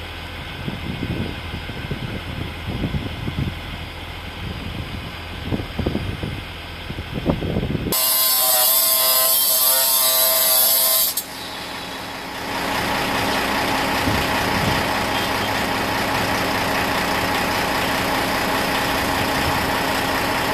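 Construction-site noise. Irregular knocks and thumps for the first several seconds, then a sudden loud hiss with a steady whine for about three seconds. After that a heavy vehicle or machine engine runs steadily.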